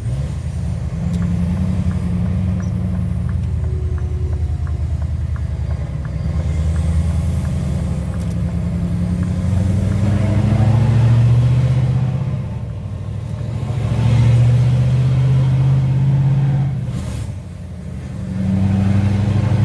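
Scania R730's 16-litre V8 diesel engine running under load, its revs rising in several surges and dropping back between them.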